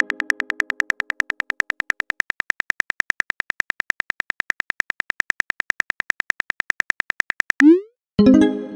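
Simulated phone keyboard typing: a rapid, even stream of short clicks. Near the end it stops with a short rising whoosh, the sound of a text message being sent, followed by a chime-like note.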